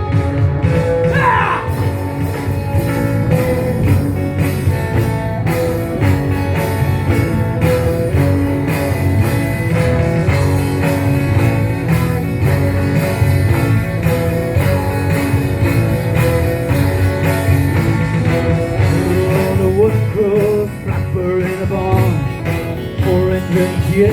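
Live country-rock band playing with a steady beat: guitar over bass and drums. A voice comes in near the end.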